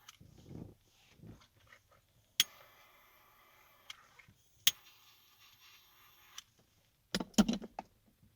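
A torch-style lighter clicked alight twice, each time hissing steadily for a second or two, heating shrink tubing over soldered wire joints. A short burst of clattering handling knocks near the end is the loudest sound.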